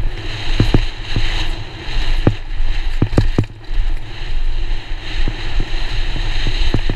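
Downhill mountain bike rolling fast down a dirt track, with wind buffeting the action camera's microphone and tyre hiss, broken by irregular sharp knocks and rattles as the bike goes over bumps.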